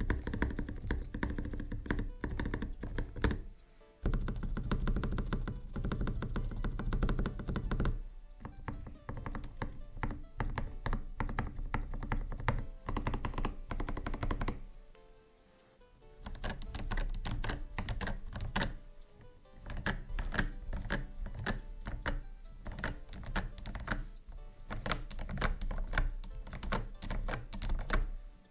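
Typing on a MelGeek Pixel mechanical keyboard with linear switches modelled on Kailh reds: fast runs of keystrokes, pausing briefly about 4 s and 15 s in. Background music plays underneath.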